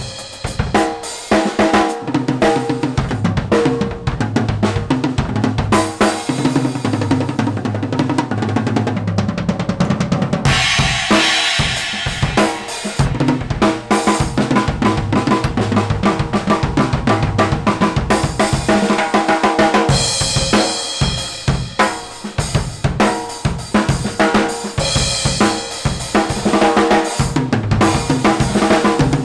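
Acoustic drum kit played at full volume: kick drum, snare, toms and hi-hat in a busy groove with fills, and crash cymbals washing over it at intervals.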